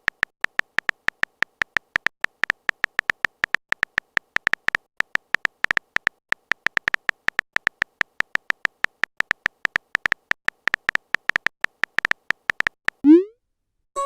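Phone typing sound effect: a fast, uneven run of short high electronic beeps, one per keypress, about five a second. A short rising swoop comes near the end.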